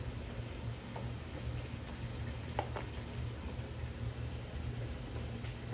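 Steady hiss over a low hum, with a faint knock of a chef's knife cutting pineapple on a wooden cutting board about two and a half seconds in.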